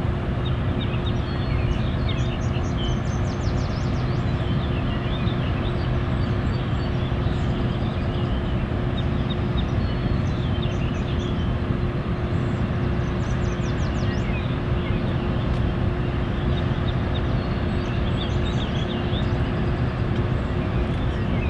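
Steady low rumble with a constant hum, unbroken at an even level, with birds chirping and trilling over it.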